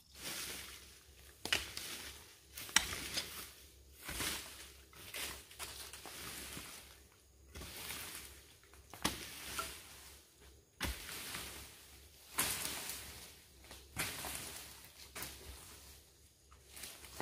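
Repeated scraping strokes, most opening with a sharp hit, about one every one to two seconds.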